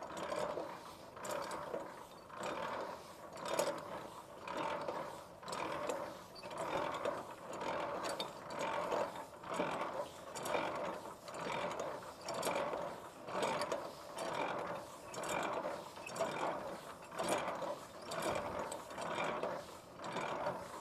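Semi-trailer landing gear being hand-cranked in high gear to raise the legs: mechanical gear noise with light clicks that swells and fades about once a second with each turn of the crank.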